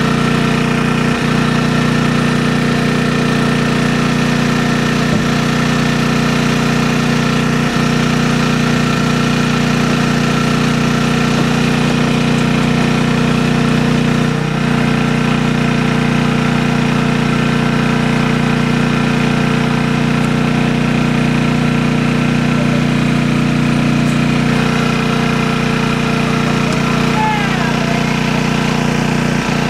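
A small engine droning steadily at one constant speed, with a few faint brief knocks.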